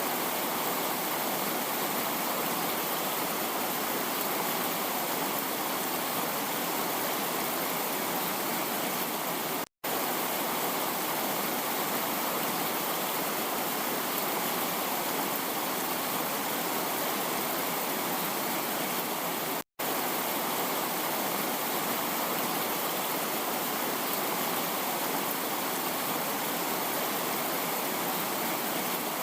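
Heavy rain as a steady, even rushing hiss, cutting out for a split second twice, about ten seconds apart.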